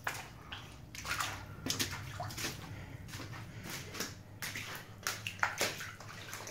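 Footsteps splashing on a flooded, wet tile floor: irregular wet slaps and splashes, over a faint steady low hum.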